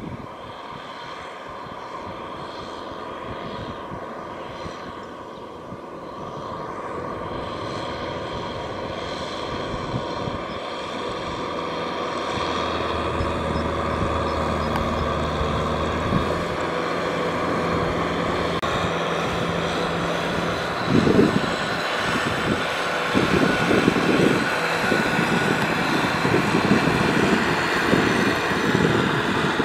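Tractor engine running steadily, growing louder through the middle, with irregular low thumps in the last several seconds.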